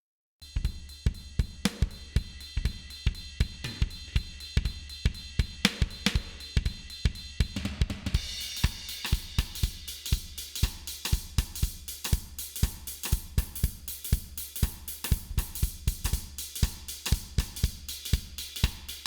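A recorded drum kit groove (kick, snare, hi-hat and cymbals) plays through an Allen & Heath GL2400 analog mixing console while its high-mid bell EQ is swept. The drums come in just after the start, and the top end turns noticeably brighter about eight seconds in.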